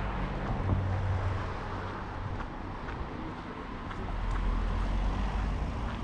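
Street traffic noise: cars driving past on a city street, a steady low rumble that swells as vehicles pass, most heavily in the last couple of seconds.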